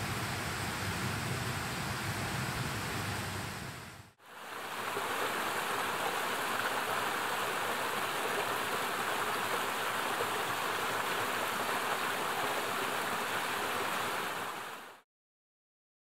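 Steady rushing water in two stretches: the sound dips out briefly about four seconds in, comes back brighter, and fades out about a second before the end.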